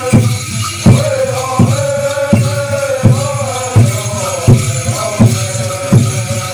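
A group of voices singing a chant over a steady drum beat, about three beats every two seconds.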